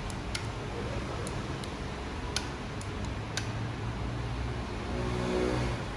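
A handful of sharp plastic clicks and taps, about seven in the first three and a half seconds, from the plastic cordless tool parts being handled, over a steady low background hum.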